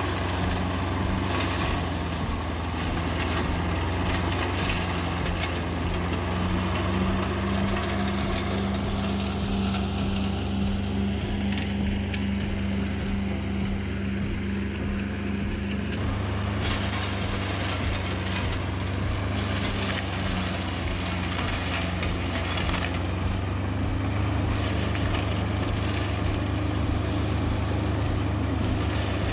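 Single-cylinder Iseki diesel engine of a walk-behind flail mower running steadily under load while the flail rotor chops through tall grass. Its note shifts about halfway through.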